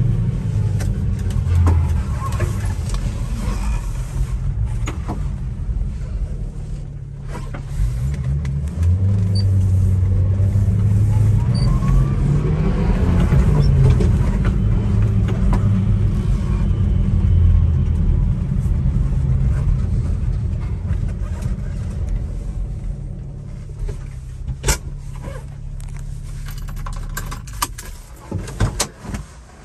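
Subaru Sambar kei truck's small 660 cc four-cylinder engine heard from inside the cab while driving. The engine note drops and climbs again with gear changes, then settles lower as the truck slows and stops. A few sharp clicks come near the end.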